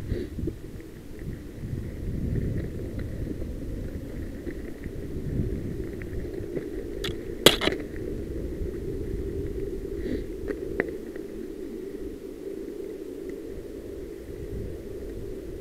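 Mountain bike riding along a dirt singletrack, heard from a helmet-mounted camera: a steady low rumble of wind and tyre noise on the microphone. There is one sharp knock about halfway through and a few lighter clicks soon after.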